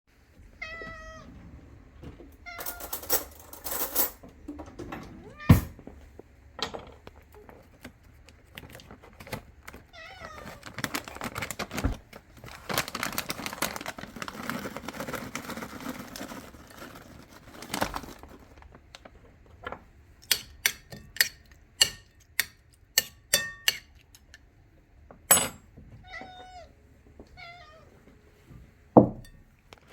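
A domestic cat meowing in short, chirpy calls: a few near the start, more around the middle and again near the end. Between the calls come sharp clicks and knocks, a quick run of them in the second half, and a stretch of noise in the middle.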